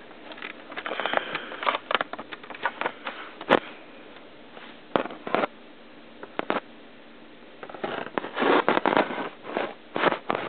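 Scattered plastic clicks, taps and scrapes of Lego minifigures being moved on a Lego baseplate, with a quieter spell in the middle and a denser run of clicks and rustling near the end.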